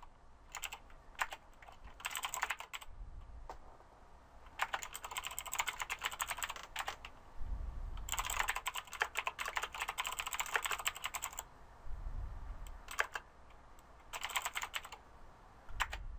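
Typing on a computer keyboard in quick bursts of key clicks, with short pauses between runs, while code is entered.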